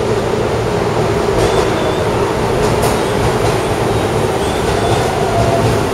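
Electric commuter train noise at a station platform: a steady rumble and hum with a few brief, faint high-pitched squeals.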